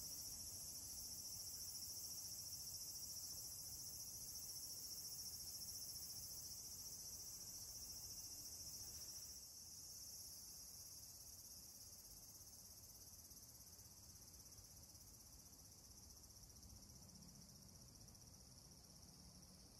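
Insects trilling in a faint, steady high-pitched chorus, a little softer from about halfway through.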